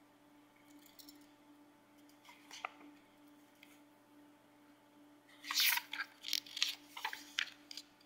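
Paper pages of a thin paperback picture book being turned and handled: a few faint paper sounds, then a run of quick rustles and flaps from about five and a half seconds in. A faint steady hum lies underneath.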